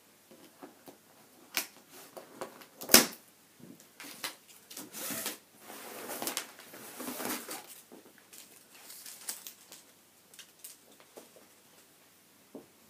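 Scissors cutting plastic packing straps on a large cardboard box, with a sharp snap about three seconds in. Then the straps rustle and drag as they are pulled off and the box is shifted.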